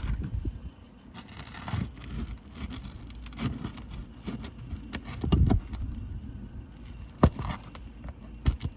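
A nail-pulling tool worked under old asphalt roof shingles, giving irregular scrapes, rustles and clicks as the nails are worked loose, with a sharp click about seven seconds in and another near the end.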